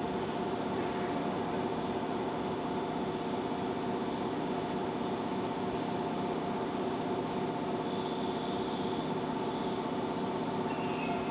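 JR East 701 series electric train standing stopped at the platform, its onboard equipment giving off a steady hum with a few constant whining tones.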